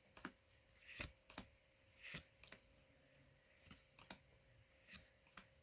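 Faint, sharp clicks and light rustles of Magic: The Gathering trading cards being flipped through by hand, one at a time at an uneven pace, over a faint steady hum.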